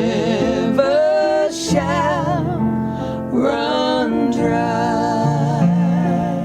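Slow worship song: a solo voice sings long held notes with vibrato over keyboard accompaniment.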